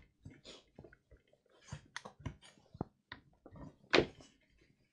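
Plastic housing of an Erbauer reciprocating saw and its new power cable being handled, giving scattered light clicks and knocks, with one louder thunk about four seconds in as the saw is turned and laid on the mat.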